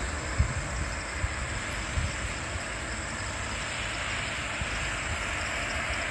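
Steady rushing noise of road traffic on a highway, with low thumps of wind on the microphone; the rush swells a little near the end.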